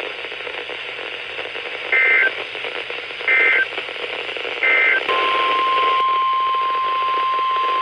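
NOAA Weather Radio alert tones over radio hiss: three short two-pitch SAME digital header bursts, about a second and a half apart, then the steady 1050 Hz warning alarm tone starting about five seconds in. Together they announce the start of a new warning broadcast.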